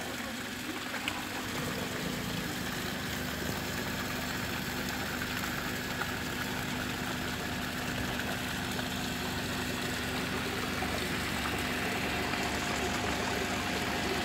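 Small decorative waterfall running in a steady rush, with a faint steady hum underneath.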